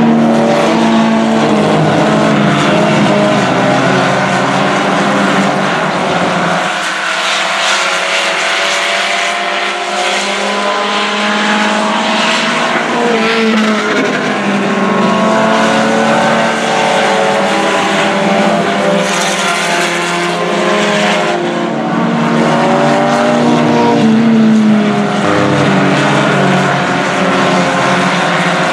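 Several IMCA Sport Compact race cars running hard on a dirt oval, their four-cylinder engines overlapping and rising and falling in pitch as they lap the track.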